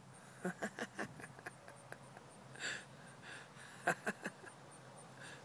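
Faint scattered taps and light rustling, the sharpest clicks a little before the end, over a faint high-pitched pulse repeating about four times a second.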